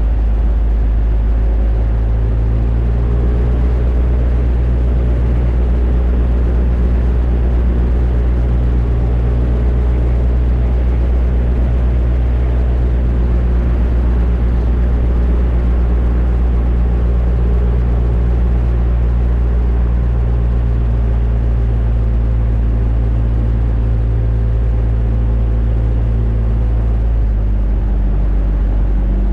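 Rotax 582 two-stroke twin engine of an X'Air microlight running steadily, with a deep, even drone. The engine note shifts slightly near the end.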